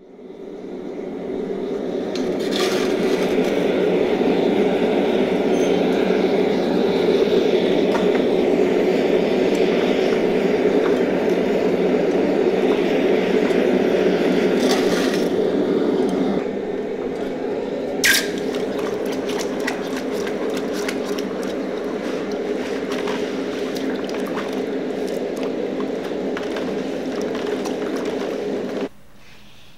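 Gas forge burner running with a steady rushing noise while a hammer head heats. After a cut, the hot hammer head is quenched in a bucket of liquid, with a steady rush and scattered crackles and one sharp click, until the sound cuts off suddenly near the end.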